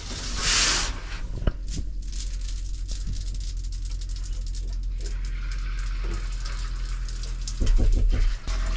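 Water running from a faucet in a steady rush, with a short hissing surge about half a second in: the cabin's water lines being flushed of antifreeze. A louder low rumble cuts in for about a second near the end.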